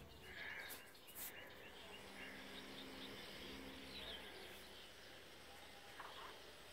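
Faint outdoor ambience with distant birds calling: a quick run of short chirps in the first two seconds, then scattered calls. A faint low hum runs under the first half.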